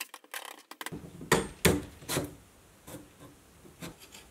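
Clicks and knocks of parts and a hex key as the CNC 3018's plastic Z-axis carriage and spindle motor are fitted back together and screwed down. A run of light ticks comes first, then three louder knocks between about one and two seconds in, then scattered small clicks.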